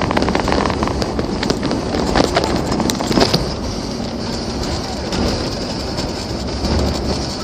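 Car running along a highway in a blizzard: steady road and wind noise, with a run of irregular clicks and taps during the first three seconds or so.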